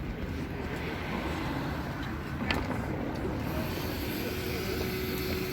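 City street traffic noise: a steady rumble of passing vehicles, with a single sharp click about two and a half seconds in.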